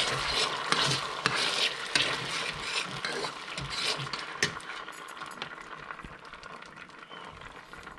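A spoon stirring thick hoisin sauce in a stainless steel skillet, scraping and clicking against the pan. The stirring gets quieter in the second half.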